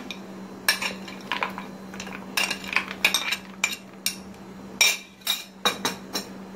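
Frozen falsa berries clattering into a blender jar as they are tipped off a ceramic plate, with a metal spoon scraping and tapping against the plate: a run of irregular sharp clicks and clinks.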